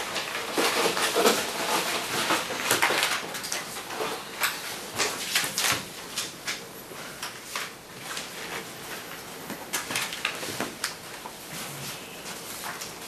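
Sheets of paper rustling and shuffling as they are handled and passed across a table, with scattered light knocks; busier in the first half, thinning out later.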